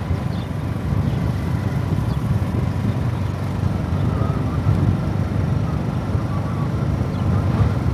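Steady low rumble of a vehicle's engine and road noise, heard from on board while moving along the road.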